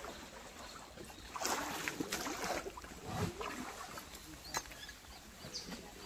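Irregular rustling, swishing and crackling of grass and brush around a riding elephant as it moves through wet undergrowth.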